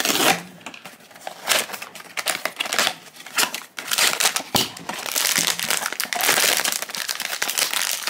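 Pop Mart cardboard blind box handled and opened, then its silver foil pouch crinkling loudly as hands pull it out and tear it open. The crinkling is in short bursts at first and becomes nearly continuous about halfway through.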